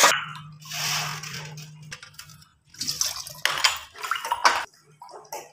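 Tap water splashing as dishes are washed by hand: first over a plastic colander, then a run of clattering and splashing as cups are rinsed. The water and clatter stop about a second before the end.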